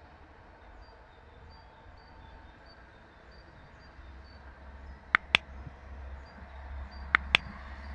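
Two sharp double mouse-click sound effects about two seconds apart, the loudest sounds here, from the animated subscribe button and notification bell. Under them, a low rumble grows louder in the second half, with faint bird chirps repeating throughout.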